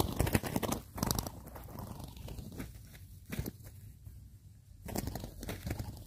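Dry leaves and grass rustling and crackling in several bursts, loudest in the first second and again about five seconds in.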